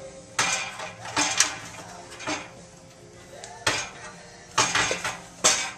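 Sheet-metal clanks and scrapes from a steel car radiator support being worked at with a hand tool, in about six short, sharp bursts.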